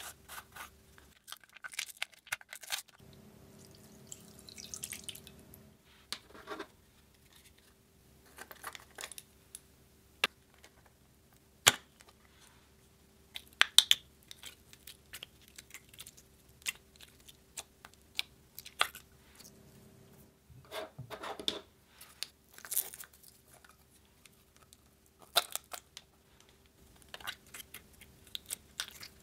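Small plastic slime containers being handled and opened, with lids clicking and snapping, and sticky orange jelly slime being pressed and poked with the fingers: scattered sharp clicks and short crackly, wet sounds.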